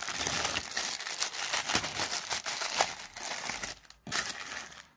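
Thin plastic poly mailer bag crinkling and rustling as hands pull it open and handle it: a dense, irregular run of crackles that breaks off briefly just before four seconds in, then fades away near the end.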